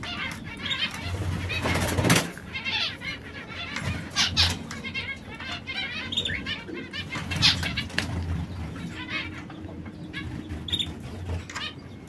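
Domestic canaries chirping and trilling in short repeated phrases, with a few louder sudden flutters among them, the loudest about two seconds in.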